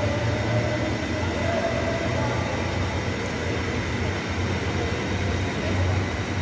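Large industrial drum fan running steadily close by: a constant rushing noise with a low hum.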